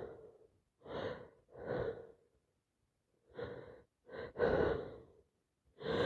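A woman with a heavy head cold taking about six short, catching gasps with a pause in the middle: the build-up to a sneeze.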